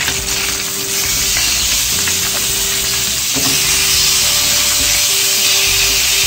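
Slices of pork neck sizzling in a nonstick frying pan, a steady high sizzle that grows louder about a second in.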